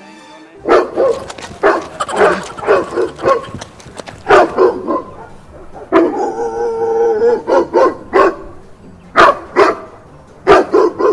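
A recording of a dog barking, played to fake a dog's presence. It is loud and fast, a rapid string of barks starting about half a second in, with one longer drawn-out bark near the middle.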